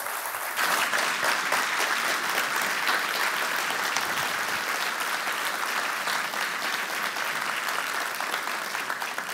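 Audience applauding steadily, a dense mass of handclaps that starts to thin out near the end.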